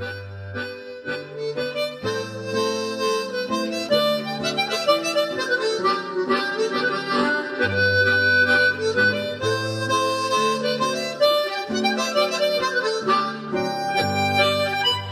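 Instrumental background music with a moving bass line and quick melodic notes.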